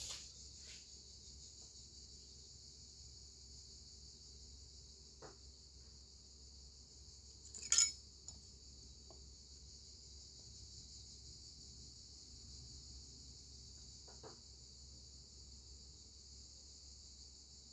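Steady high insect chorus. A sharp clink comes about eight seconds in, with a couple of faint knocks elsewhere.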